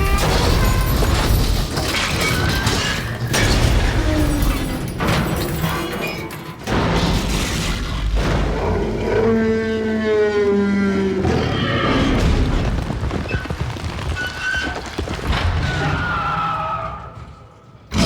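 Designed dinosaur calls for a film: pitched bellows and moans over low booming rumbles, with one long wavering bellow about nine to eleven seconds in. The sound fades away near the end.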